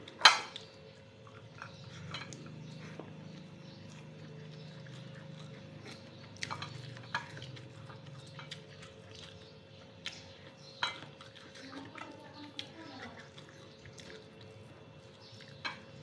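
Eating by hand from a ceramic plate: scattered light clinks and taps of the plate and dishes, over a faint steady hum.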